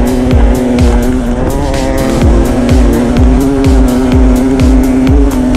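Electronic dance music: a fast, steady kick-drum beat with ticking hi-hats over a held synth drone.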